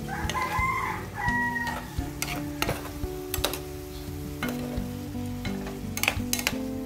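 A metal spatula scraping and knocking against a metal pan as chicken pieces in sauce are stirred, with light sizzling from the simmering sauce. A rooster crows once near the start, lasting about a second and a half.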